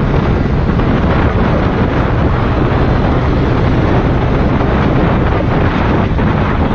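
Wind buffeting the microphone of a handlebar camera on a motorcycle riding at speed, a loud steady rushing with heavy low rumble and vehicle noise underneath.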